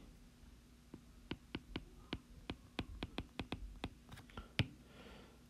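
Stylus tip tapping and clicking on a tablet's glass screen during handwriting: a quick, irregular run of light taps, ending with a sharper tap.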